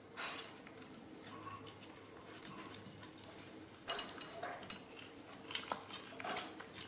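Small clicks, rustles and taps of jackfruit being pulled apart on a plate and eaten by young macaques, with a louder, sharper rattle about four seconds in.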